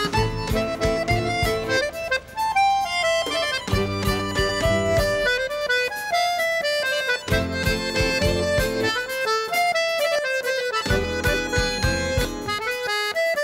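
Instrumental music: a quick melody of short stepping notes over a pulsing bass line.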